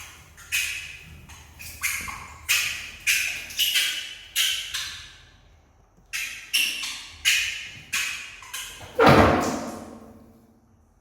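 A run of sharp knocks or slaps, about two a second, with a short pause midway, ending in one heavier thud a little after nine seconds.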